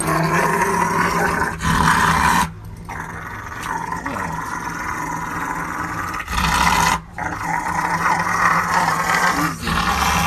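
Rottweiler growling and grumbling in long, throaty stretches while being rubbed, broken by two short pauses, mouth open and head thrown back: a contented, vocal play growl rather than a threat.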